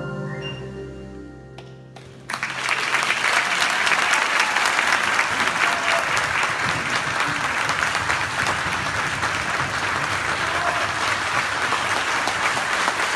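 The final held chord of a children's choir song fades out, and about two seconds in the audience breaks into loud, steady applause.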